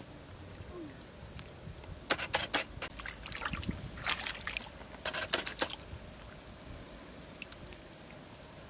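Hands squelching and splashing in shallow muddy paddy water: several short bursts of wet sloshing, starting about two seconds in and ending before six.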